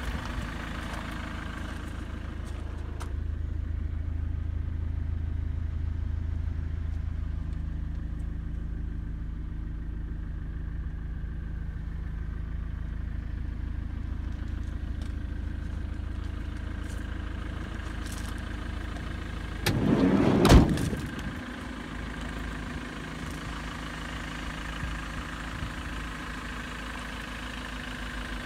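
Ford Transit minibus engine idling with a steady low hum. About two-thirds of the way through, a loud clatter lasting about a second ends in a sharp knock.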